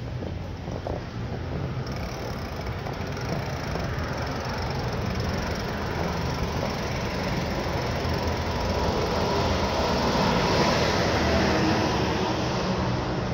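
Rushing wind and rolling noise during a bicycle ride, growing gradually louder over about ten seconds and easing a little near the end.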